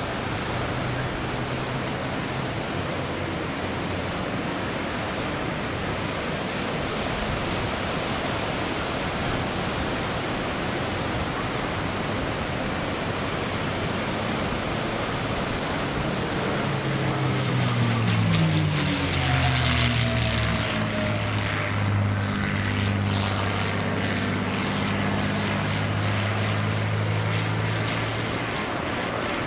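P-51D Mustang's Packard Merlin V-12 engine and propeller running in an aerobatic display, over a steady hiss. About two-thirds of the way through, the engine note swells and falls in pitch as the plane passes close, then settles into a steady drone.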